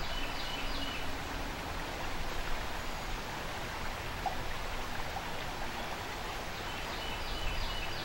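Fast river water rushing over rapids, a steady even rush. A few short high chirps come near the start and again near the end.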